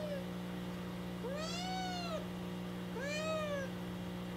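A two-month-old black kitten meowing: two clear meows, each rising then falling in pitch, about a second and a half apart, with the tail end of another at the very start. The owner wonders whether the constant meowing comes from unease in an unfamiliar home or from calling for her mother.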